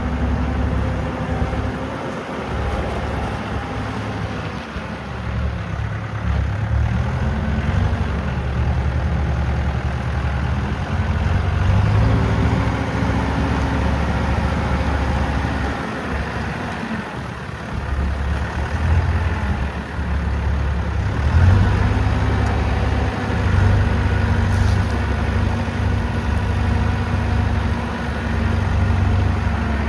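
Diesel engine of a 2006 Terex backhoe loader running, its revs and pitch rising and dropping several times.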